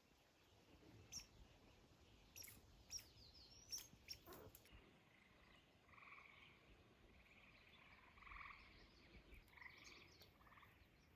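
Faint trilling frog calls: a run of short pulsed trills in the second half, over near silence. A few soft clicks come in the first half.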